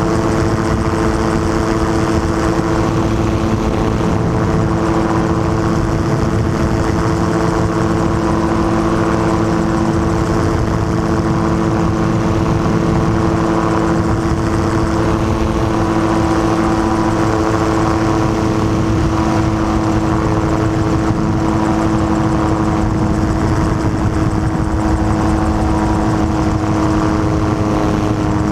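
Gyrocopter's engine and propeller running steadily in level cruise flight, a loud, even drone whose pitch holds constant.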